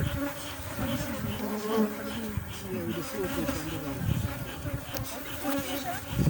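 Honeybees buzzing, many at once: a dense hum of overlapping, wavering pitches around the colony being worked.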